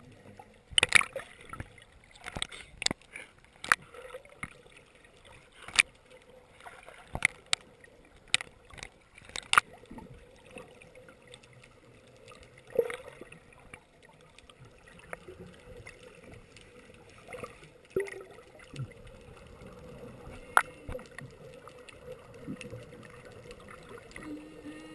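Underwater sound through a camera housing just below the surface: scattered sharp clicks and pops with gurgling water and bubbles, the clicks coming thick and fast in the first ten seconds and thinning out after, over a faint steady hum.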